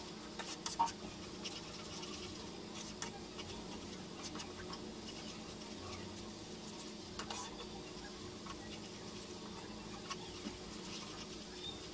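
Wooden spatula stirring and scraping a thick, sticky milk-powder and coconut mixture around a nonstick frying pan, in irregular light scrapes and clicks over a steady low hum. The mixture is being stirred without pause so it doesn't catch on the bottom while its water cooks off.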